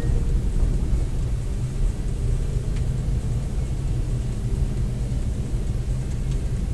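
Steady low rumble of a car driving slowly, engine and road noise picked up inside the cabin by a dashcam microphone.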